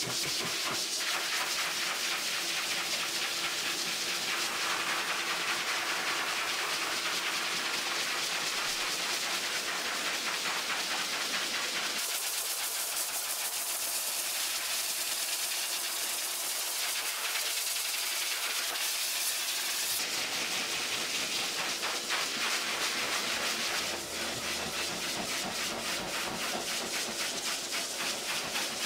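High-velocity dog dryer blasting air through its hose and nozzle into a thick plush coat: a steady rushing hiss with a faint motor hum under it. The hiss shifts abruptly about twelve seconds in and again about twenty seconds in.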